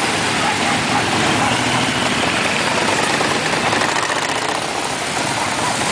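Car engine running steadily under an even rushing noise.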